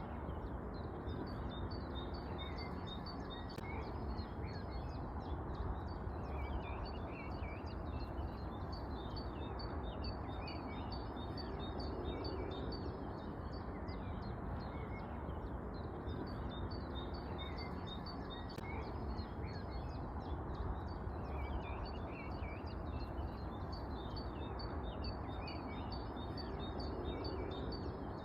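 Many small birds chirping and twittering continuously in quick, overlapping high chirps, over a steady background noise.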